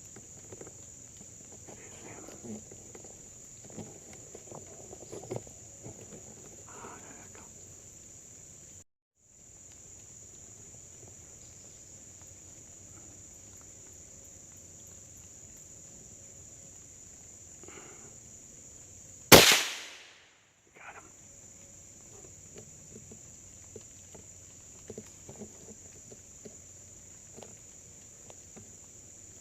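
Steady high-pitched drone of crickets and other insects with light rustles, broken about two-thirds of the way through by a single loud gunshot that rings out briefly.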